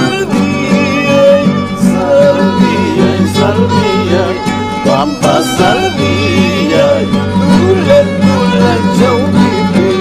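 Andean folk music: a violin carrying a lively melody over two acoustic guitars, with a man singing along.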